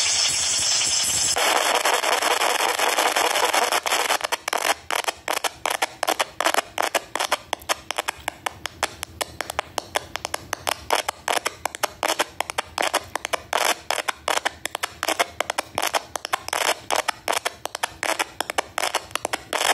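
Heavily over-amplified, distorted audio sample in a YTPMV remix. It is a continuous noisy blare for about the first four seconds, then is chopped into rapid stuttering bursts, several a second.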